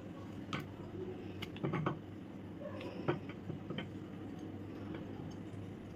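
A slab of milk chocolate compound being scored with a knife and snapped into small pieces over a glass bowl: a scatter of faint clicks and snaps, with a quick cluster of them about two seconds in.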